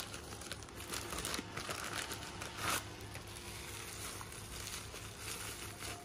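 Plastic packaging crinkling and rustling in the hands: a black bubble-lined plastic pouch being handled and opened, with irregular small crackles and one louder crackle a little under three seconds in.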